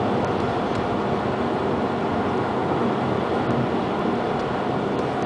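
Steady road noise inside a moving car's cabin: tyre noise on the road surface with the engine running underneath, level throughout.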